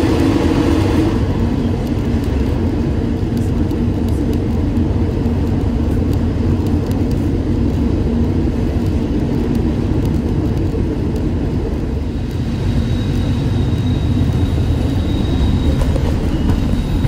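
Heritage rail motor running along the line, heard from inside the carriage by an open window: a steady rumble of running gear and wheels on rail with air rushing past. A faint high whine joins about thirteen seconds in.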